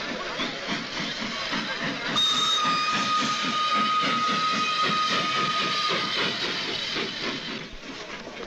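Steam locomotive running with a steady rhythmic chuffing and hiss, its whistle blowing one long steady note from about two seconds in until about six seconds in.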